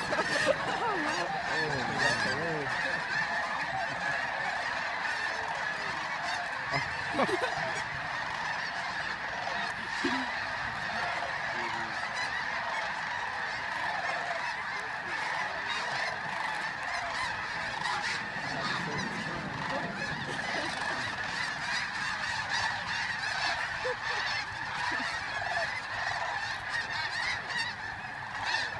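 A huge flock of geese calling all at once: a dense, unbroken chorus of overlapping honks.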